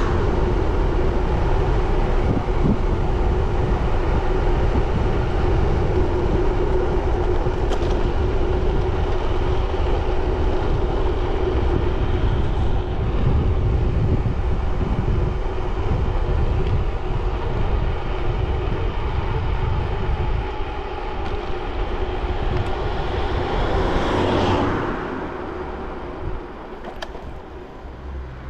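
Wind rushing over the microphone and road noise during a bicycle ride, loud and steady. About 24 seconds in, a louder whoosh swells and passes, and the noise then drops off.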